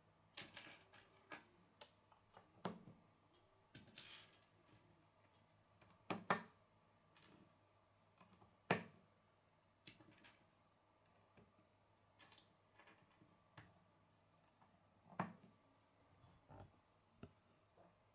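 Plastic K'nex pieces clicking and snapping as they are handled and pushed onto rods and connectors: scattered sharp clicks a second or a few seconds apart, with lighter ticks between.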